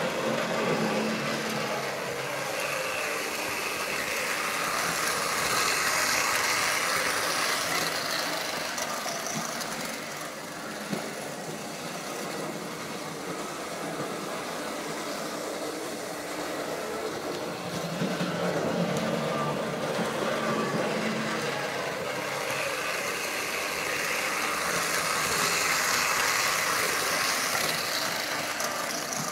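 Märklin model train running on metal track: the locomotive's motor whirring and the wheels rumbling over the rails. It swells louder twice as the train passes close by.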